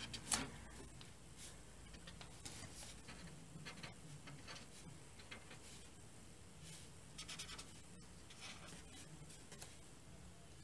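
Faint, scattered soft scratches and rustles of cross-stitch fabric and embroidery floss being handled, with a small cluster about two-thirds of the way through.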